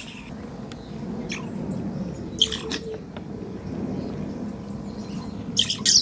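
Banded mongooses giving short, high-pitched chirping contact calls: a few scattered chirps, then a louder cluster near the end, over steady low background noise.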